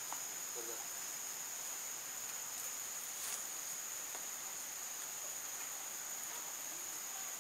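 Insects droning steadily at a high pitch in a rural garden, a continuous even chorus with no breaks.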